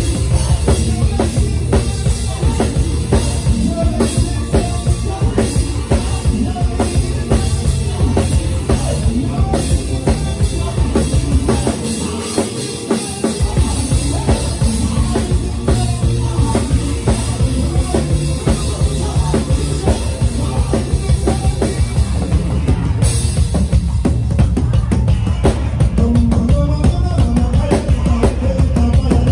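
Live praise band playing an instrumental groove led by drum kit and bass; the deep bass drops out for about a second and a half about twelve seconds in.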